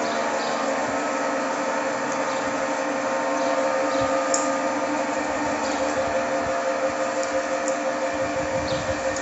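Single-screw oil press running steadily while pressing soybeans: a continuous mechanical hum from its motor and belt-driven screw, with a few light ticks.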